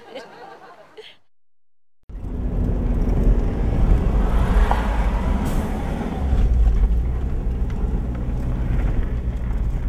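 A motor vehicle running with a heavy low rumble and road noise. It cuts in abruptly about two seconds in, after a moment of dead silence.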